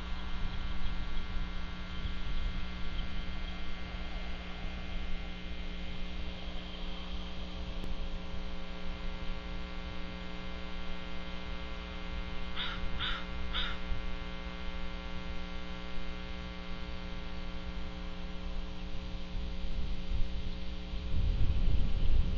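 Steady electrical hum from a nest camera's audio, with three short bird calls in quick succession about halfway through. A louder low rumble comes in near the end.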